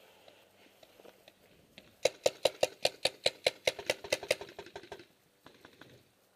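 Paintball marker firing a rapid string of about a dozen sharp shots, about five a second, starting about two seconds in and stopping after about two and a half seconds, followed by a few fainter pops.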